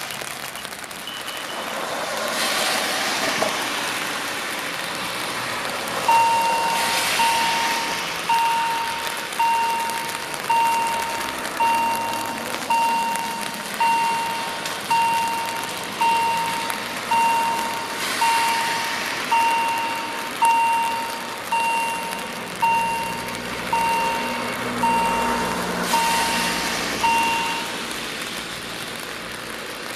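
Electronic warning beeper of a push-button level crossing, sounding regular beeps at one steady pitch while the barriers are up and stopping shortly before the end. Cars pass on the wet road beside the crossing with a hiss of tyres, a few seconds in, at about 7 and 18 seconds, and near the end.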